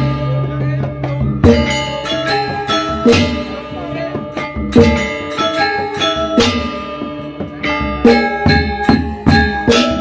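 Balinese gamelan playing: struck bronze metallophones and drum in a quick, dense rhythm.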